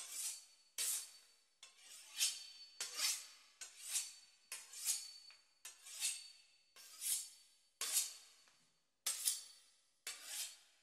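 A knife sawing through the crisp puff-pastry crust of a beef Wellington: repeated crackly scraping strokes, roughly one a second or a little faster, each fading quickly.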